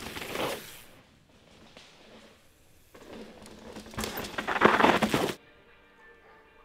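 Mountain-bike tyres crunching over a loose dirt trail as riders pass close by: a short pass right at the start, then a louder one about three seconds in that builds for two seconds and cuts off suddenly.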